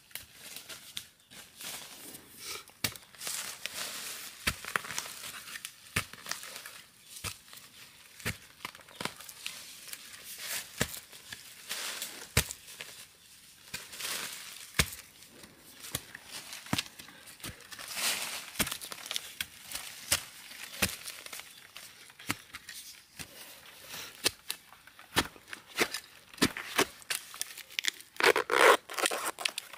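A digging tool striking and tearing into forest soil and roots at irregular intervals to unearth a bamboo shoot, with dry leaf litter crackling. Near the end, loose soil scrapes and crumbles loudly as a hand clears dirt from around the shoot.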